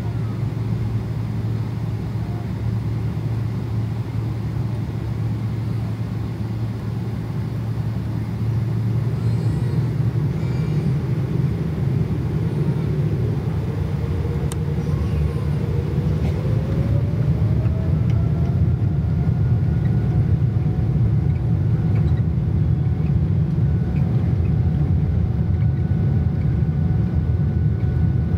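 Steady, heavy low rumble of a vehicle under way. About halfway through, a whine rises in pitch over a few seconds and then holds steady to the end.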